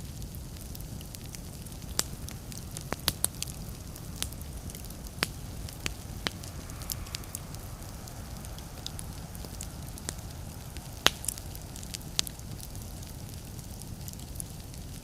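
Wood fire burning in a fireplace: a steady low rumble with irregular sharp crackles and pops, the loudest pop about eleven seconds in.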